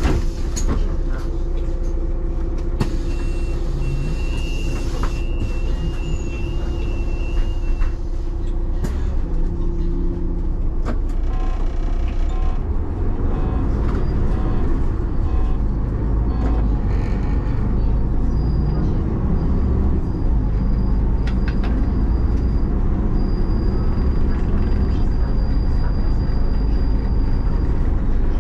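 City bus on the move, heard from the driver's cab: a steady low engine and road rumble. A few seconds in, a high, broken tone sounds for about four seconds.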